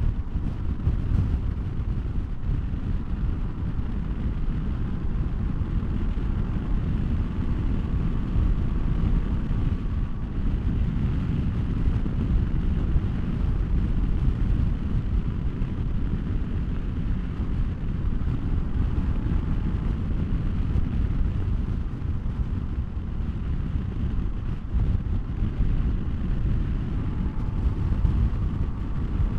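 Heavy wind noise buffeting the microphone over a Honda SCL500 motorcycle's parallel-twin engine, cruising at a steady speed of about 45 mph. The sound stays steady throughout, with no revving or gear changes standing out.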